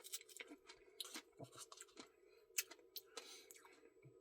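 Faint mouth clicks and wet smacks of someone eating a Blizzard, close to the microphone, over a low steady hum.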